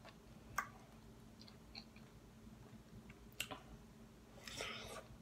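Faint mouth sounds of someone eating juicy fresh pineapple: two sharp clicks, then a short bite near the end.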